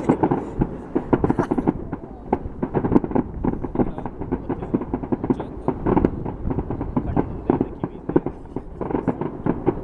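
Many fireworks and firecrackers going off at once: a dense, continuous run of pops and bangs with no pause.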